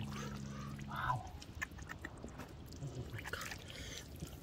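Faint wet sloshing and squelching of hands working through shallow muddy water, with small splashes and drips. A low steady hum stops about a second in, alongside one short brighter sound.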